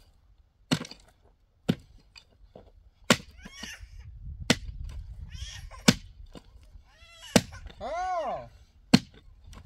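Sharp, regular knocks of a hand tool striking a hard surface, about one every second and a half, seven in all. A short rising-and-falling cry is heard near the end.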